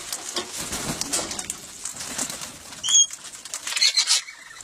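Wild birds calling at a hand-feeding spot: a short, sharp high chirp about three seconds in, then a brief harsh burst of calls near four seconds, over small scattered clicks.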